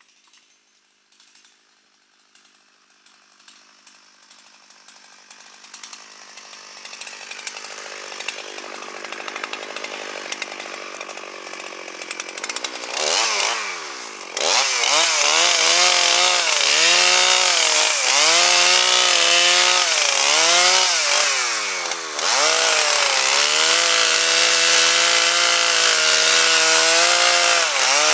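Two-stroke chainsaw cutting up pine: faint at first and growing louder over about ten seconds, then at full throttle from about halfway in. Its pitch repeatedly sags and recovers as the chain bogs down in the wood, with a brief let-off about two-thirds of the way through.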